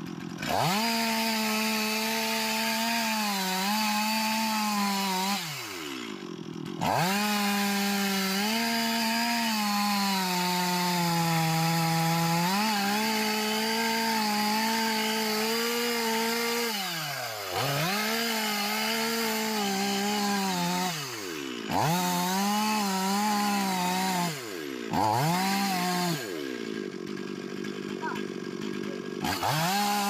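Two-stroke chainsaw cutting wood at full throttle, its engine note wavering as it works, dropping back to idle about five times and revving up again each time.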